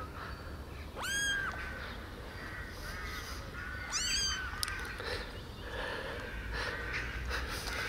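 Very young kittens mewing: a high-pitched mew about a second in that jumps up and holds briefly, another rising mew about four seconds in, and a few fainter short mews between them.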